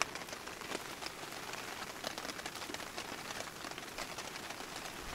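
Heavy rain falling on a tarp overhead: a steady wash of many small drop hits.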